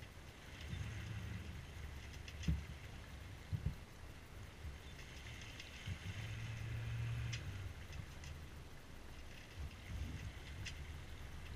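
Water rushing along the hull of a C&C Mirage 24 sailboat under way, with wind buffeting the microphone as a low rumble. A few sharp knocks stand out, the loudest two about a second apart early on.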